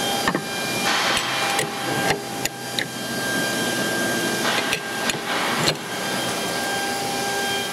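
Steel open-end spanners clink and scrape against a CNC router spindle's collet nut as the nut is tightened on a cutting bit, giving a handful of sharp metallic clicks and short rasps. A steady hum with several whining tones runs underneath.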